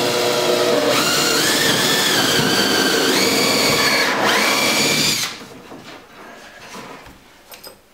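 Cordless drill boring a bolt hole down through a wooden canoe inwale into the wooden carrying yoke. The motor whine steps up in pitch about a second in and again about three seconds in, dips briefly near four seconds, then stops about five seconds in, followed by faint handling sounds.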